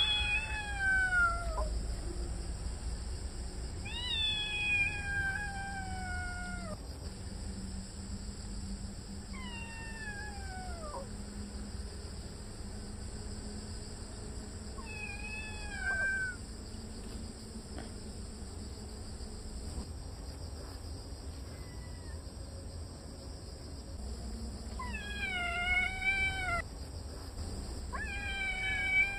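Kitten's loud, drawn-out meows, each sliding down in pitch, about seven cries spaced a few seconds apart, with two close together near the end. They are the kitten's warning calls at an older cat, to drive it off the yard.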